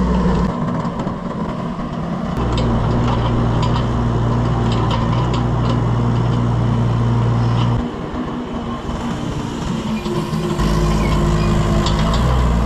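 Mini excavator engine running under varying load as it works. Its low note drops out twice and comes back, with scattered metallic clanks and clicks over it.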